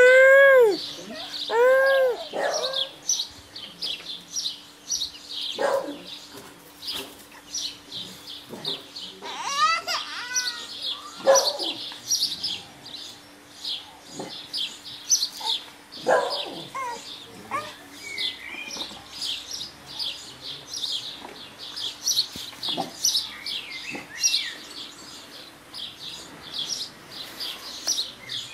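Small birds chirping continuously in rapid, repeated high chirps. A baby's short high-pitched squeals and babbles come in at the start, again about two seconds in and about ten seconds in.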